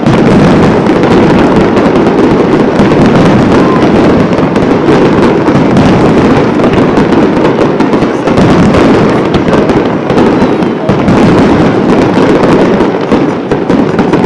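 Aerial fireworks display: a dense, continuous barrage of shell bursts and crackling, loud throughout with no pauses.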